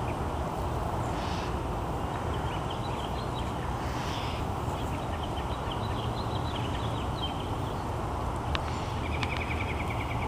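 Steady outdoor background noise with small bird chirps scattered through it, and a quick trill of rapid repeated notes near the end.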